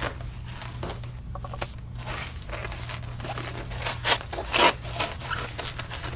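Plastic poly mailer being slit open with a pocket knife and handled: a run of short crinkling, tearing rustles, the loudest a little after four seconds in.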